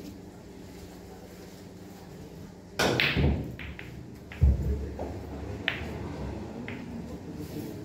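Billiard balls struck during play: a sharp crack with a brief clatter about three seconds in, a heavy low thud about a second and a half later, then a few light clicks of balls touching.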